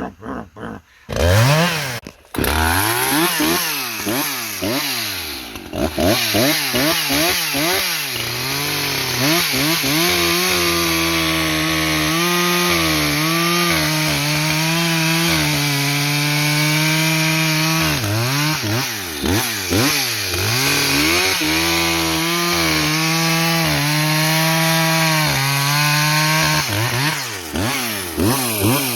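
Husqvarna 562XP two-stroke chainsaw running, coming in about a second in and revving up and down quickly. It then cuts firewood, its engine pitch sagging under load and picking back up between cuts.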